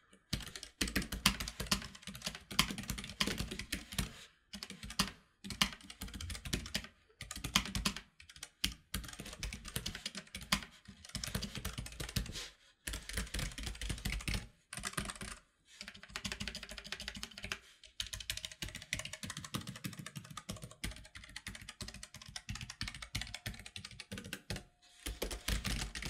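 Typing on a Keychron K3 low-profile mechanical keyboard with red linear switches: a steady stream of keystrokes, broken by brief pauses every few seconds. Very subtle, quiet for a mechanical keyboard.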